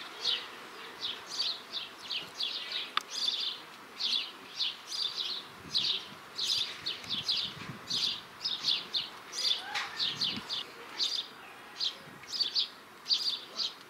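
House sparrow chirping over and over, short sharp chirps at about two or three a second.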